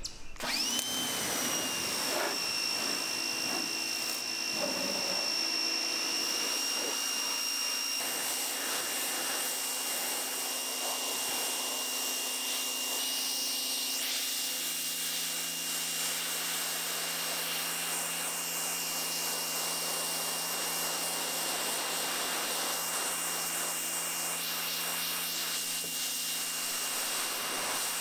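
Pressure washer running and spraying: a steady hiss of the water jet, with a steady high whine from the machine that comes in at the start.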